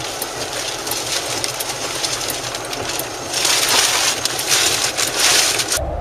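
Rushing wind-and-road noise inside a car on a rain-soaked highway in a storm, with scattered faint ticks. It grows louder about three seconds in and cuts off abruptly near the end.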